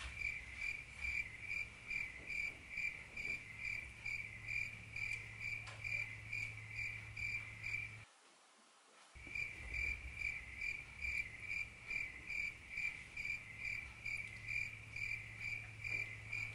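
Crickets chirping in an even rhythm, about two to three chirps a second, over a faint low hum. The sound cuts to dead silence for about a second just past the middle, then resumes.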